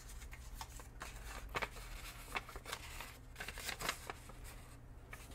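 Faint rustling and light crisp ticks of paper being handled: a folded instruction leaflet being opened and sheets of transfer letters shuffled between the hands.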